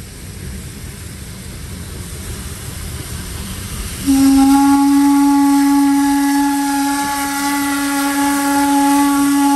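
Steam locomotive approaching with a low rumble that grows louder. About four seconds in, its steam whistle sounds one long, steady, loud blast, over the hiss of steam venting.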